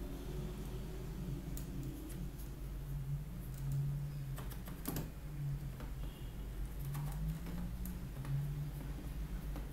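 The small 220 V gear motor of an incubator egg turner hums steadily, turning its worm gear and the plastic rollers very slowly. Scattered light clicks and knocks come from hand tools being handled on the plastic tray.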